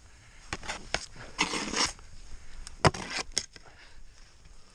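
Scraping and crunching of deep powder snow and gear close to the microphone as someone shifts in the snow: a few sharp knocks and two short rushes, about a second and a half in and again near three seconds.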